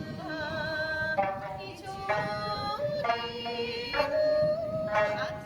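Okinawan sanshin ensemble playing, with a sung melody of long held, wavering notes that change about once a second.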